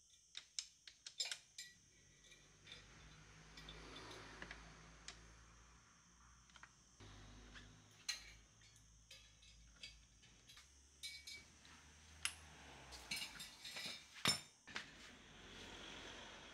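Hand tools working scooter bolts: a socket ratchet clicking in short quick runs and steel tools clinking against metal, with one sharp louder click near the end.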